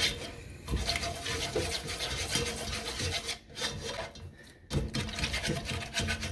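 Whisk scraping against a heavy pan in quick repeated strokes as flour is stirred into a thickening sauce, with two brief pauses past the middle.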